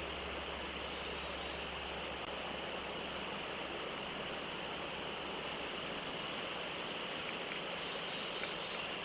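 Steady outdoor hiss with a small bird's faint, high chirps, each short run falling in pitch: about half a second in, around five seconds, and again past seven seconds.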